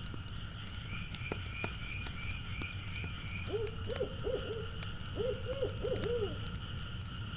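Owl hooting in two runs of quick rising-and-falling hoots around the middle, over a steady night-ambience bed with faint high tones and scattered light ticks.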